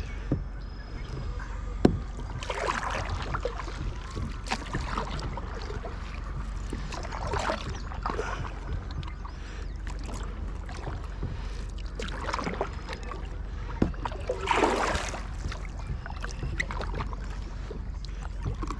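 Kayak paddle strokes: water swishing and dripping off the paddle blades every couple of seconds, over a low steady rumble. There is a sharp knock about two seconds in.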